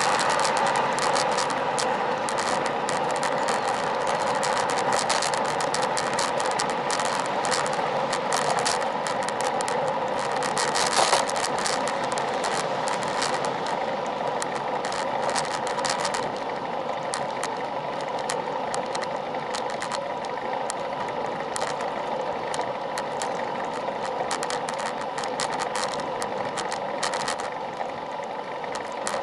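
Riding a road bike: steady tyre and wind noise, with many irregular rattling clicks as the bike rolls over the road surface. A car that has just passed fades away in the first moments.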